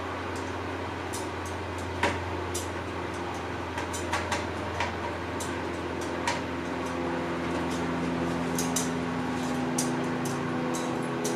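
Scattered light clicks and taps of small metal clock parts, tiny screws and a small screwdriver being handled while a grandfather clock's dial and movement are worked on. Under them runs a steady low hum, joined about halfway through by a second steady, higher hum.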